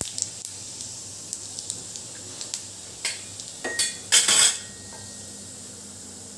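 Cumin seeds sizzling and crackling in hot oil in a steel kadhai, with a few louder metal clanks and scrapes of the pan about three to four and a half seconds in.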